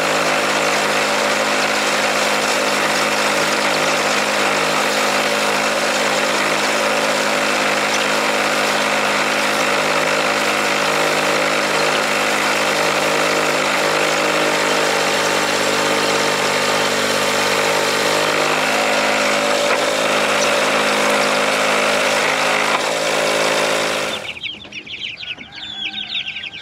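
A motor engine runs steadily at one unchanging speed, then cuts off abruptly near the end. Chickens cluck and peep in its place.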